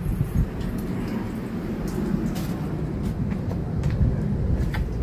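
Low rumbling and rustling on a handheld phone's microphone as a bulky fleece blanket is carried, with a few light knocks and footsteps.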